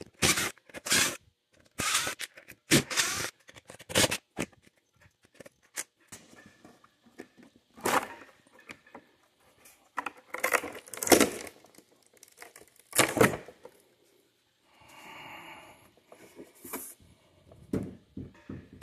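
Old silicone sealant and a siliconed-on plastic plate being pulled and torn off a fiberglass RV roof by hand: irregular tearing and scraping bursts, one after another, with a longer softer rasp near the end.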